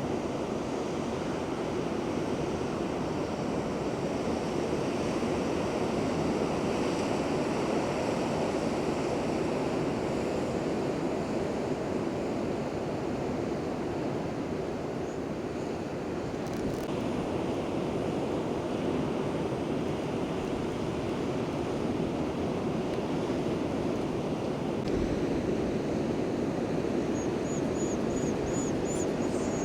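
Ocean surf, a steady rushing noise of waves breaking without pause.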